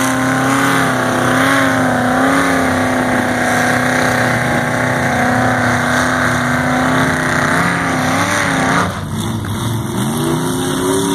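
Engine of a lifted 4x4 mud truck revving hard as it churns through deep mud, its pitch wavering up and down with the wheelspin. About nine seconds in, the engine note drops suddenly and it carries on quieter, with short rising revs.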